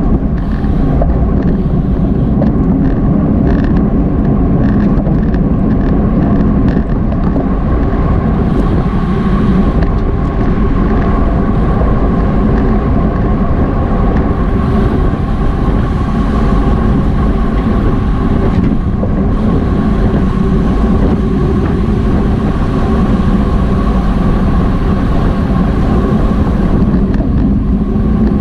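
Loud, steady wind rush buffeting a Garmin VIRB action camera's microphone on a road bike at criterium racing speed, with tyre and drivetrain noise underneath.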